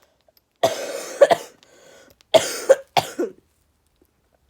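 A person coughing in two short fits about a second and a half apart, each fit made of a few sharp coughs.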